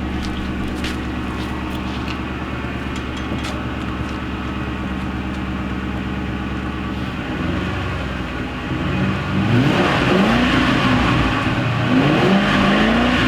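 Ford Crown Victoria Police Interceptor's 4.6-litre V8 idling steadily, then revved up a few times from about eight seconds in, its pitch rising and falling with each blip.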